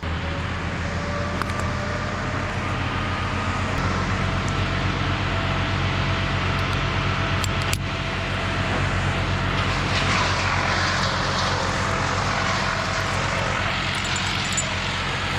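An engine running steadily, starting suddenly and holding one even drone, with a louder hiss rising around ten seconds in.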